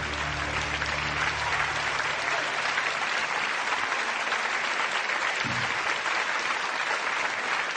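Audience applauding steadily, with the band's last sustained chord ringing under the clapping and fading out about two and a half seconds in.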